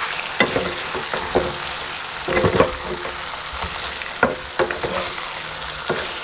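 Chicken pieces frying and sizzling in oil with freshly added ground spices in a non-stick kadai, stirred with a wooden spatula. Irregular scrapes and knocks of the spatula stand out over a steady frying hiss.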